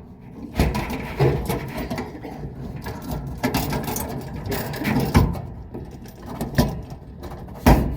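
Irregular knocks and clatter from hands and parts being worked on the dryer during reassembly: about half a dozen separate clunks over handling noise, the loudest near the end.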